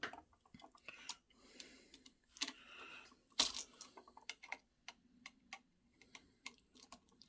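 Light clicks and taps of a toggle switch, its screws and wires being handled and pushed into place by hand, with a couple of brief scraping sounds; the sharpest click comes about three and a half seconds in.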